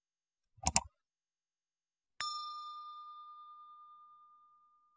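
Two quick clicks, then a single bright ding that rings out and fades over about two seconds.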